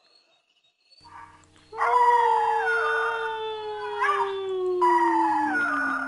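Several dogs howling together, starting just under two seconds in after near silence. The main howl is one long call that slowly falls in pitch, with higher howls overlapping it that rise and fall.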